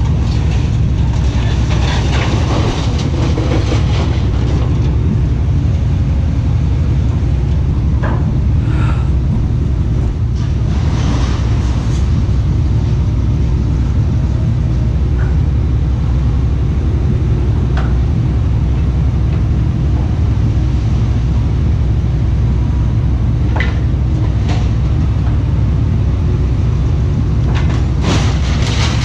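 Vehicle engine and road noise: a steady low rumble, with a few short rattles and knocks scattered through it.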